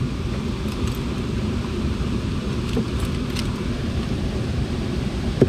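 Steady low rumbling noise, with a few faint clicks about three seconds in.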